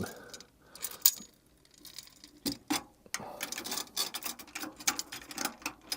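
A few sharp knocks, then rapid, irregular metallic ticking and clicking from about three seconds in: tom drum hardware being handled as the head and hoop are fitted back onto the shell.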